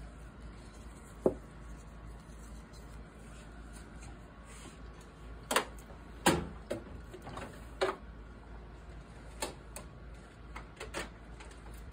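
Small parts and hand tools being handled on a workbench: scattered light clicks and knocks, about eight in all, the sharpest about a second in and around six seconds in, over a low steady hum.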